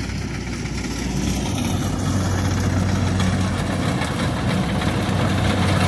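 Kubota DC70 combine harvester's diesel engine running steadily with a low hum, growing a little louder about a second and a half in.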